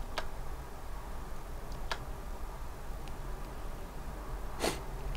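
A few sharp, isolated clicks from working a computer's mouse and keyboard, over a faint steady low room hum.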